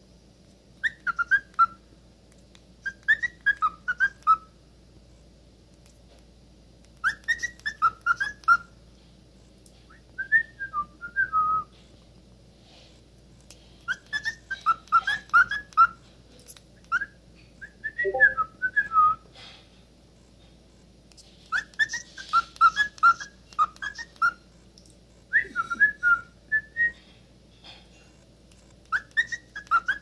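Cockatiel whistling in short bouts of quick chirping notes, a burst every two to four seconds with brief pauses between, sung at its own reflection in a steel saucepan.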